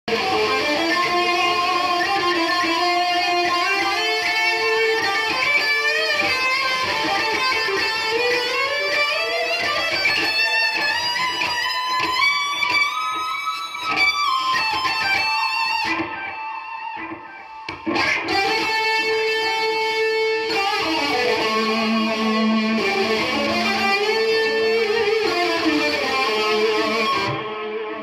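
Cort X300 electric guitar played through a Boss Katana 50 MkII amp with its delay effect on: melodic single-note lines, with a fast run of notes tapped by the picking hand high on the neck partway through. The playing drops off briefly after the run, then resumes.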